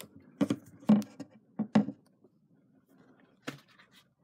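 Handling noise of a portable radio in a leather cover and its cardboard box: a few short knocks and rustles in the first two seconds as they are handled. Then comes a single light knock about three and a half seconds in, as the radio is stood on a wooden table.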